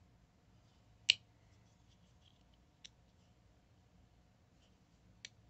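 Sharp clicks from a Damned Designs Djinn flipper knife being worked open and shut: one loud click about a second in and two fainter ones later. The action is still tight on the brand-new knife.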